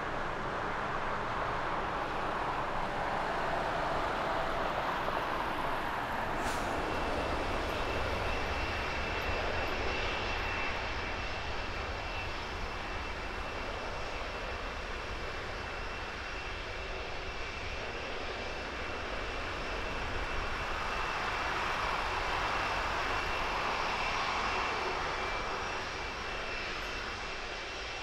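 Jet engines of a Boeing 747 freighter at low power: a steady rumble with a high whine, swelling for a few seconds past the middle and easing near the end as the Cargolux Italia 747-400 freighter taxis by. In the opening seconds, before a click about six seconds in, broader jet noise from another 747 freighter touching down.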